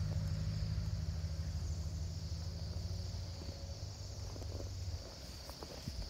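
A large flock of small birds calling all at once, their massed chatter a steady high-pitched chorus. A low rumble runs underneath and drops away about five seconds in.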